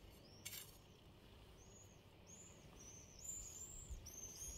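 Faint songbird chirping: a series of short, high, arching notes repeating from about two seconds in, over quiet outdoor background. A single light click about half a second in.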